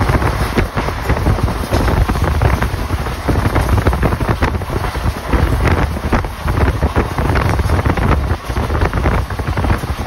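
Wind buffeting the microphone over the steady rumbling running noise of a moving vehicle, with frequent small knocks and rattles.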